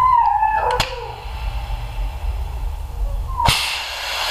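A short falling squeal and a click, then, about three and a half seconds in, a click and a loud steady rush of compressed air from a pneumatic sealant gun.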